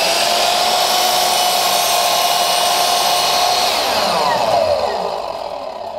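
Skil MS6305-00 10-inch dual-bevel sliding miter saw's 15-amp motor running at full speed with a steady whine as the blade is brought down through a piece of molding. About four seconds in the trigger is released and the whine falls away as the blade spins down.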